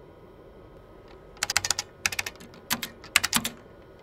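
Typing on a 1981 IBM PC keyboard: short quick runs of key clicks, starting about a second and a half in, with brief pauses between the runs.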